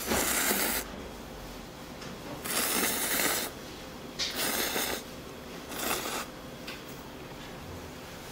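A person slurping food at the table, four separate slurps of half a second to a second each, the first right at the start and the last about six seconds in.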